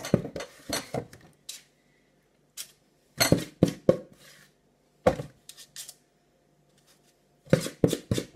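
Spoon clinking and scraping against a mixing bowl as cake batter is scooped into cupcake cases, in several quick clusters of clinks with short pauses between.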